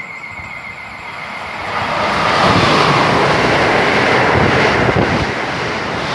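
A passing train on an electrified main line: a broad rushing noise builds about a second and a half in and then stays loud and steady as the train goes by.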